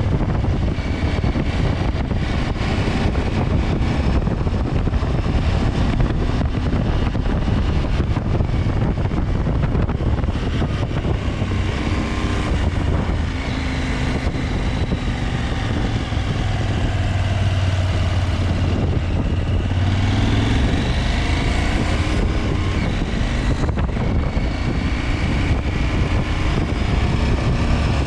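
KTM 890 Adventure's parallel-twin engine running steadily under way, its pitch rising and falling in the middle stretch as the revs change.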